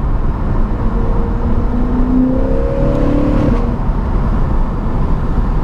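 Lexus RC F's V8 running through an Armytrix header-back exhaust, heard from inside the cabin with the windows down: a steady rumble mixed with wind and road noise, the engine note climbing briefly in the middle.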